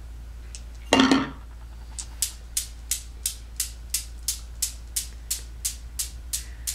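A loud knock about a second in, then the solid metal balls of a Newton's cradle clacking together in a steady rhythm, about three sharp clicks a second.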